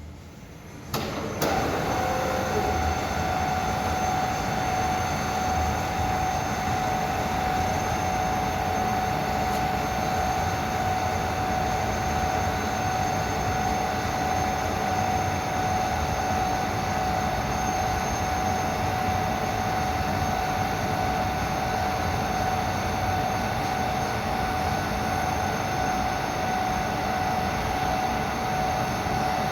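FIL FA 130 CNC milling machine running, with a steady high whine over a broad mechanical rumble, starting up about a second in and holding level.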